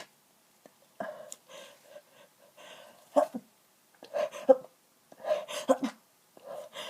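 A person sneezing in a hayfever fit: several stifled, muffled sneezes in a row, each with a short gasping in-breath before it.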